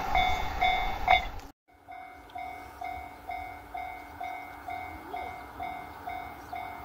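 Level-crossing warning bell ringing in a steady repeating ding, about three times a second. Over the first second and a half it is mixed with the low rumble of a 227 series electric train running on the rails, which is the loudest part. The sound then drops out briefly, and afterwards the bell goes on ringing more faintly.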